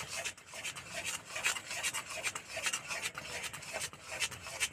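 Metal spatula scraping and stirring thick cooked jaggery syrup around a metal kadai in repeated, irregular strokes. The syrup has just come off the heat and is being stirred to cool it a little.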